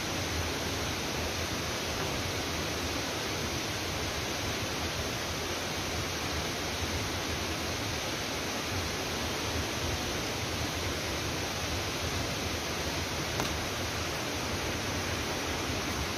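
Steady rushing roar of falling water from a waterfall, even and unbroken throughout.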